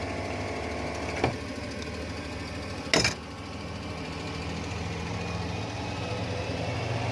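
Kobelco 850 excavator's diesel engine idling steadily, with a small click about a second in and a sharper, louder click about three seconds in.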